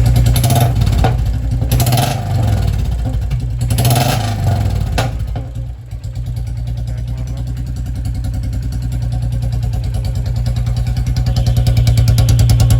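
Royal Enfield Bullet 350's 349 cc single-cylinder J-series engine running through a Mini Punjab silencer with a rubber insert on a free-flow bend pipe. The throttle is blipped a few times in the first five seconds, with a couple of sharp cracks, then the engine drops back and builds slowly and steadily toward the end.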